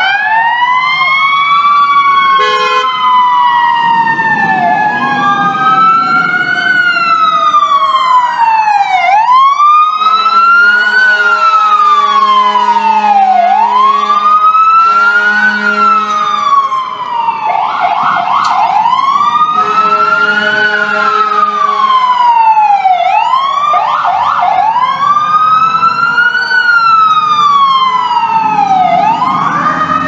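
FDNY fire truck siren wailing up and down in cycles of about four seconds, with a second siren tone sliding slowly down over about ten seconds and rising again near the end. An air horn sounds for several seconds midway.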